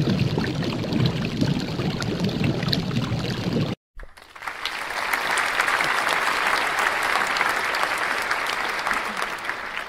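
A pouring, water-like noise that cuts off suddenly about four seconds in. After a brief gap, applause follows and tails off slightly near the end.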